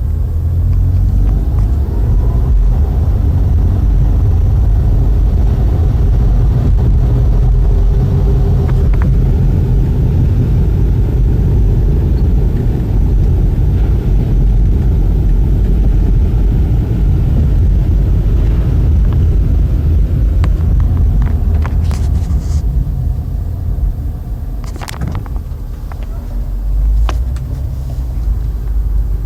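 Car driving, a steady low rumble of road and engine noise, with a few sharp clicks near the end.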